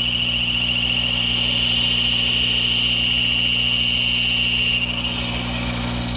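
Monarch 10EE toolroom lathe running and machining a part: a steady low hum with a strong high-pitched whine over it that drops away about five seconds in.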